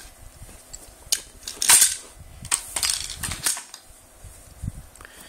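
Metal-on-metal clicks and sliding scrapes of an Olympic Arms AR-15 being taken apart as the bolt carrier is pulled out of the upper receiver, with a longer scrape a little under two seconds in and a dull knock near the end.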